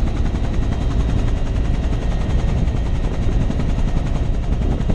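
Helicopter in flight heard from inside the cabin with the door open: loud, steady engine and rotor noise with a rapid, even beat.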